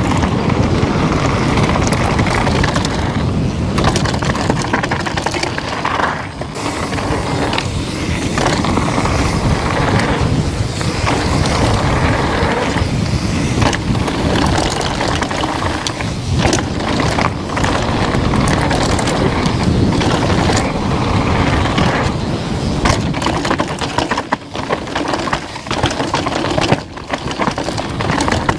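Downhill mountain bike ridden fast over a rough trail: continuous tyre noise with frequent clattering knocks from the bike over bumps, and wind buffeting the action-camera microphone.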